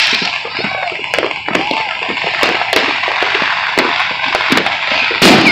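New Year's firecrackers and fireworks going off all over a town at once: a dense, irregular crackle of near and distant bangs, with one loud bang near the end.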